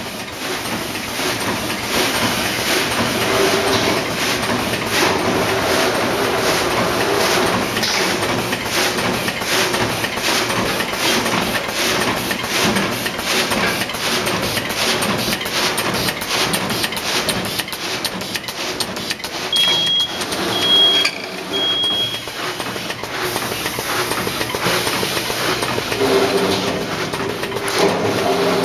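BJA4P double-decker sealing and cutting bag making machine running, with fast, continuous clacking over a steady mechanical hum. About twenty seconds in, three short high-pitched beeps sound.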